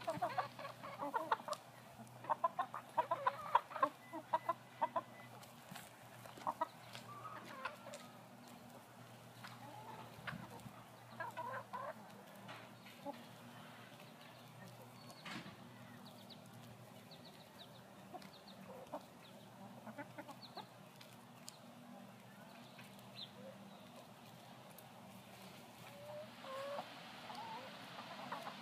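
A flock of hens clucking and murmuring as they peck at ears of corn on the cob. The clucking is busiest in the first five seconds, then turns to sparser, softer clucks with scattered light pecking taps.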